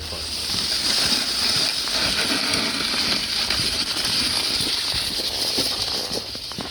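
Snow shovel pushing through light, powdery snow: a steady scraping hiss with small scuffs through it.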